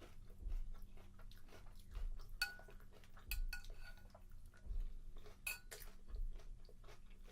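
A metal spoon clinking against a cereal bowl, with a few ringing clinks about two and a half, three and a half and five and a half seconds in, among many fainter clicks.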